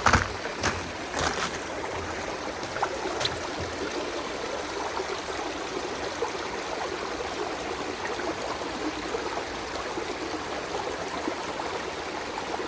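A small babbling brook, a steady rushing trickle. A few sharp knocks sound in the first second and a half.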